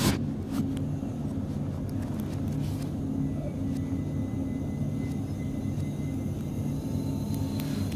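Steady low hum in a locomotive's driver's cab as the train rolls slowly, with a few faint clicks and a thin high steady tone in the middle.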